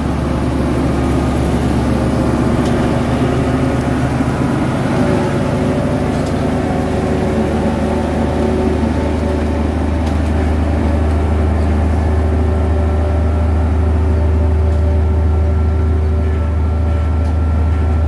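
Komatsu D58E crawler bulldozer's diesel engine running steadily as the machine works, a continuous low engine note that barely changes.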